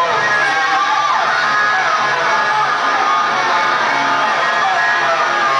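Live rock band playing loudly, led by electric guitar, with guitar notes sliding down in pitch.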